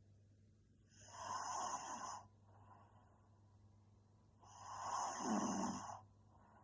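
A young woman snoring in her sleep: two long, noisy snoring breaths about three and a half seconds apart, the second with a deeper rattle, and softer breaths between them.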